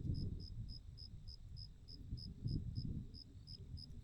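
A cricket chirping steadily, short high chirps at about three a second, over a low rumble of wind or handling noise on the microphone.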